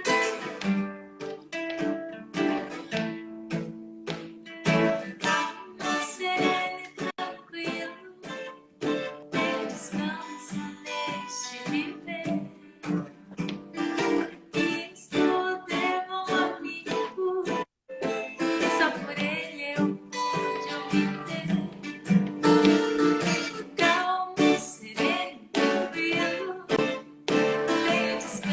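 Acoustic guitar and other plucked strings playing a gentle instrumental intro to a song, with a momentary cut-out of the sound about two-thirds of the way through.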